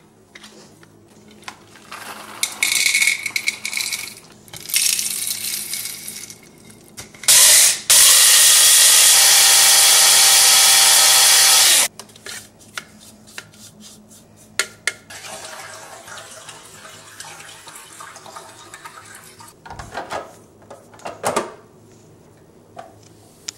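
Electric blade coffee grinder: a short pulse, then about four seconds of steady high whirring that cuts off suddenly as the motor winds down. Before it come a few seconds of rattling, and after it scattered light clicks and knocks.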